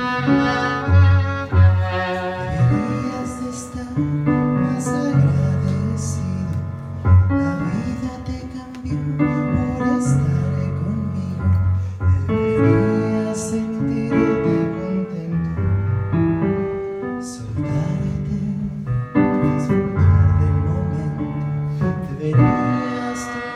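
Live music: a violin played over a keyboard's held low chords, the bass notes changing every second or two.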